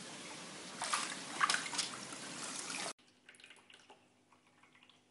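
Water splashing around a cat swimming in a pool, with a few louder splashes over a steady hiss. About three seconds in it cuts off abruptly to the quieter trickling and dripping of a pet drinking fountain over a faint steady hum.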